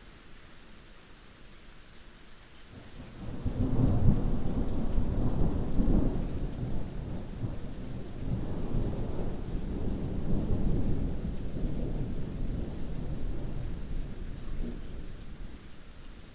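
A thunder roll over steady heavy rain. The deep rumble comes in about three seconds in, swells twice and slowly dies away near the end, with the rain hissing underneath.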